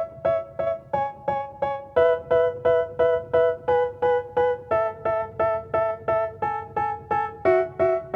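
Background music: a keyboard, electric-piano-like, plays short repeated chords about three times a second, with no vocals.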